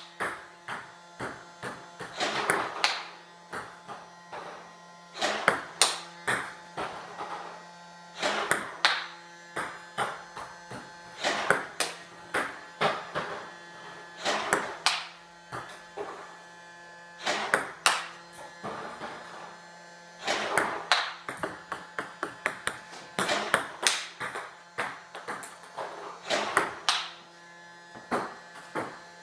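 Celluloid-type table tennis balls struck with a bat in repeated backhand strokes, one sharp click every few seconds. Each hit is followed by a short run of smaller clicks as the ball bounces on a wooden floor. A steady low hum runs underneath.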